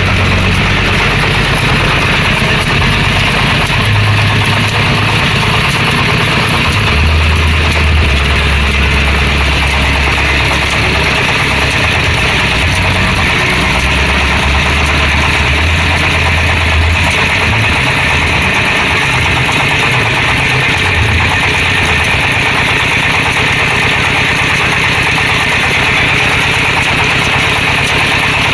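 Stationary diesel engine running steadily and noisily, powering a Ferris wheel ride through a V-belt and pulley drive.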